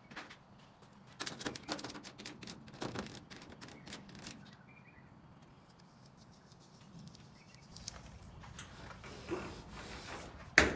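Clear transfer tape crackling and rustling in irregular clusters as it is rubbed down and peeled from vinyl lettering on a vending machine's side panel, with a sharp click near the end.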